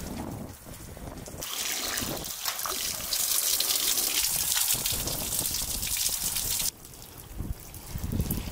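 Water running or pouring in a steady stream. It starts about a second and a half in and cuts off suddenly near the end.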